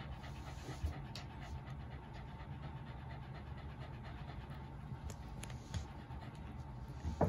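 Shiba inu panting steadily with its mouth open.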